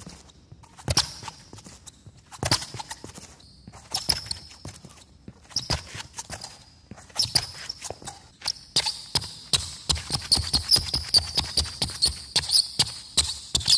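Li-Ning Way of Wade 11 basketball shoes with GCU rubber outsoles stepping and squeaking on a hardwood court, the squeaks loud and sharp, a sign of the rubber's crisp grip on wood. A few separate steps and squeaks come first, then from about nine seconds in a fast run of quick steps and squeaks.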